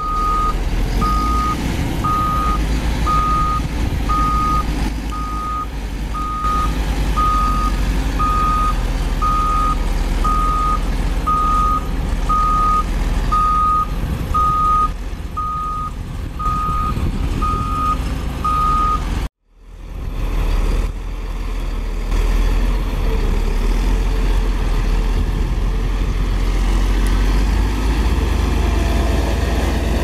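Caterpillar 12K motor grader's diesel engine running while its back-up alarm beeps steadily about once a second as it reverses. The beeping stops at a brief cut about two-thirds of the way through, and the engine runs on.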